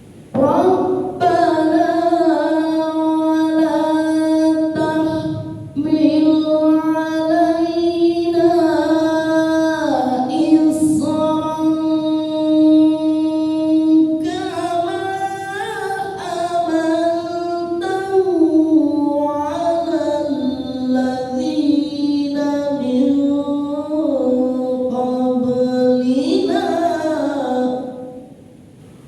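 A high-pitched voice chanting Quran recitation in one long melodic phrase, held on a steady pitch with wavering ornaments and runs, with a short dip about five seconds in and a rise near the end before it stops.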